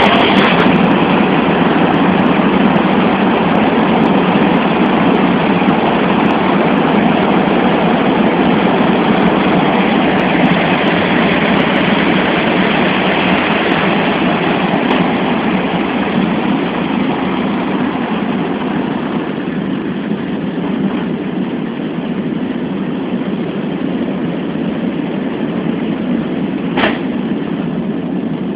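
Steady loud roar of a Boeing C-17 Globemaster III's engines and rushing air, heard from inside the cargo hold in flight, easing a little in the second half. A single short click near the end.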